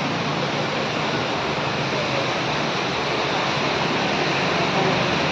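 Floodwater rushing in a steady, unbroken noise.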